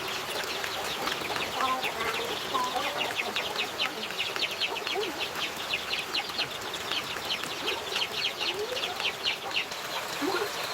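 Chickens calling, with low clucks and a fast, steady run of short high chirps, several a second, from about two seconds in until near the end.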